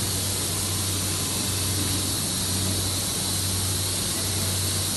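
Steady hiss of air with a low, even electrical hum from running workshop machinery around the robotic welding cell; nothing starts or stops.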